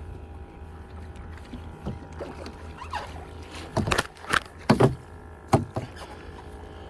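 Kayak on the water, with a handful of sharp knocks on the hull bunched about four to six seconds in, over a steady low rumble.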